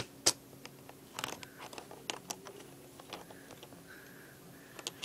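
Quiet, scattered clicks and taps of plastic Lego pieces being handled: two sharp ones at the start, then a busier cluster a little after a second in.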